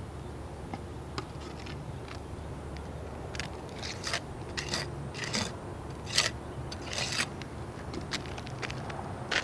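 Gauging trowel scooping roofing mastic from a bucket and scraping it across an asphalt shingle to seal a nail head: a run of short scrapes, most of them between about three and a half and seven seconds in.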